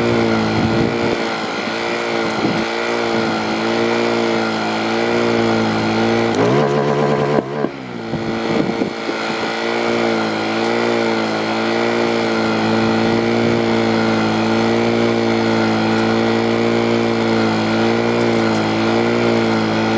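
An engine running steadily at a constant speed, its note wavering slightly, with a brief change in pitch about seven seconds in.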